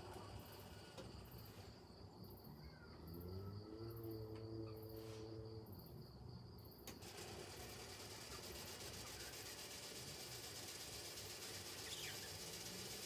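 Washing machine motors running quietly: one whines up in pitch, holds for about two seconds and stops, and another starts rising near the end, over a faint steady high-pitched tone.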